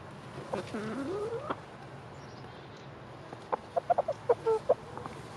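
Bantam chicken calls: one drawn-out call that swoops down in pitch and back up, then, a little after three and a half seconds in, a quick run of short clucks.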